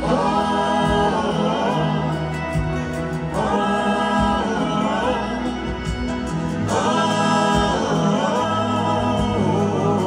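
Live band music: several voices singing long held wordless harmonies in three phrases, over acoustic guitars, bass and drums.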